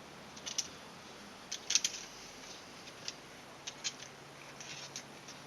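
Light, irregular clicks and taps of small laptop parts being handled during disassembly or reassembly, about a dozen short ticks spread unevenly.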